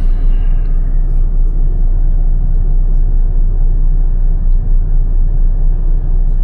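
Truck's diesel engine running steadily with a low, even rumble.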